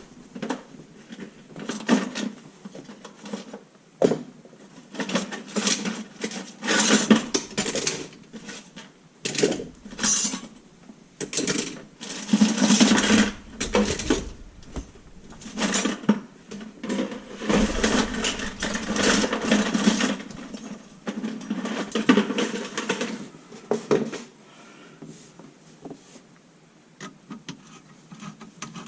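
Tools and metal and plastic drain parts clattering, knocking and scraping in irregular bursts during removal of a kitchen sink's garbage disposal and trap.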